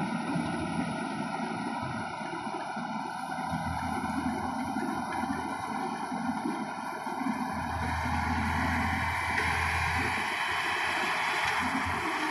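Tracked rice combine harvester's diesel engine and cutting machinery running steadily as it harvests standing paddy, growing louder in the second half as it comes closer.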